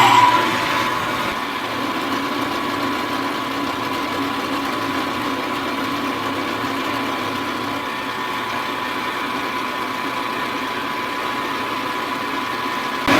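Round-column milling machine running steadily while taking the last finishing cut, its spindle giving an even whine.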